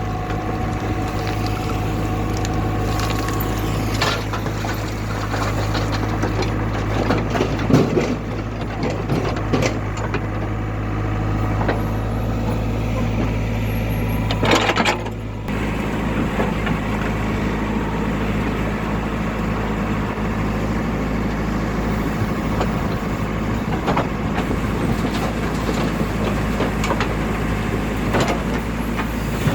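Diesel engines of heavy machinery running steadily, with occasional knocks and clanks and a short hiss about halfway through.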